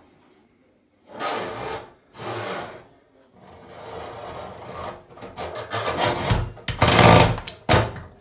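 Scraping and rubbing as a new kitchen mixer tap's flexible hoses are fed down through the hole in a stainless steel sink and the tap base is set onto the sink: two short scrapes, then longer rubbing that grows louder, with a knock near the end.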